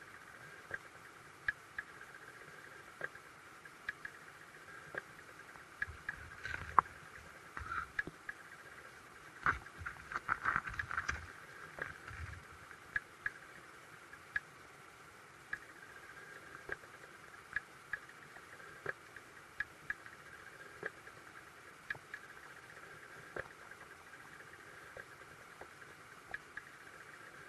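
Underwater sound of a creek picked up by a submerged camera: a steady hiss with sharp clicks every second or two, and a denser run of crackling ticks in the middle.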